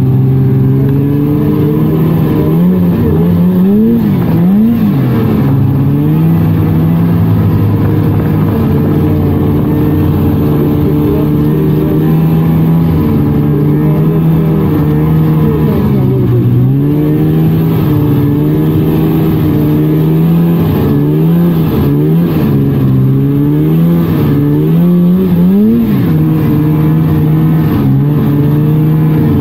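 A 1999 Polaris snowmobile's two-stroke engine running while riding along a trail. The pitch holds steady for long stretches and rises and falls as the throttle is worked, several times around four seconds in and again repeatedly after about twenty seconds.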